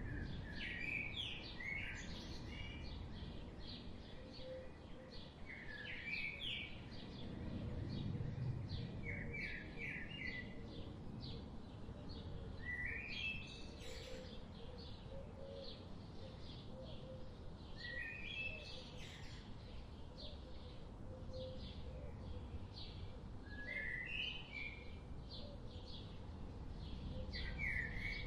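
Forest birds singing: one bird repeats a short rising phrase every four to six seconds against many quick high chirps from other birds, over a steady low background rumble.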